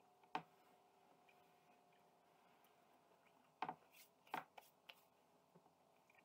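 Hands rubbing together in a quiet room: a single sharp click under half a second in, then a cluster of sharp clicks and rubs from about three and a half to five seconds in. A faint hum fades out by the middle.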